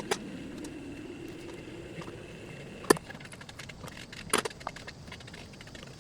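Hand tools and loose metal parts clinking and rattling during a teardown, with three sharper metallic knocks: one right at the start, one about three seconds in, and one about four and a half seconds in.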